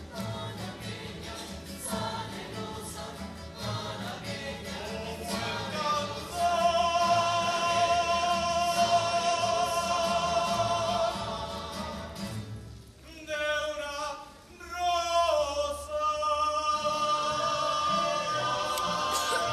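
A rondalla performing: a man's voice sings long held notes with vibrato over strummed guitars, with the ensemble's voices behind him. The singing drops out briefly a little past the middle, then returns on a wavering held note.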